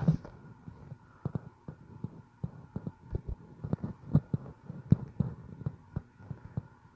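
Handling noise on a smartphone picked up by its own microphone: irregular soft knocks and taps of fingers working the touchscreen and gripping the phone, several a second.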